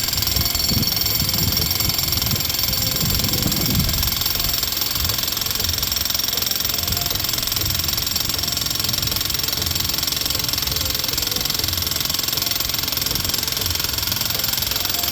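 XtremepowerUS 2200 W electric jackhammer running continuously, driving a 4-foot ground rod down into the soil through a ground-rod driving bit. Rapid hammering runs under a steady high-pitched whine, without a break.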